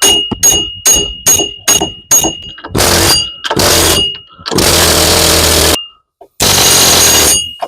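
Hammer blows on the steel front wheel hub of a 2011 Cadillac DTS, struck about twice a second with a bright metallic ring, to drive the seized hub out. After six strikes come four longer bursts of harsh noise, each from half a second to over a second long.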